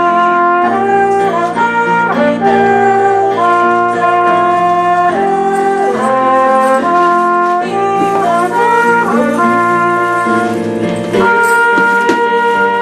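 Instrumental brass music, trumpets and trombones playing held chords that change every second or so.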